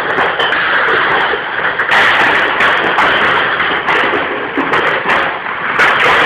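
Plastic beer crates full of glass bottles being swung, dropped and stacked at speed: a dense, continuous clatter of clinking bottles and crates knocking together, with many sharp knocks throughout.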